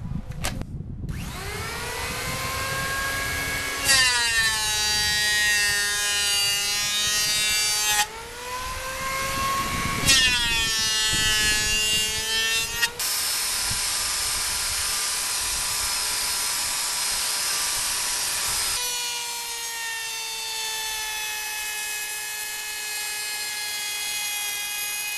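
Electric woodworking power tools working wooden table legs: a motor whine that rises in pitch as it comes up to speed several times, with abrupt changes between runs, then steadier running in the second half.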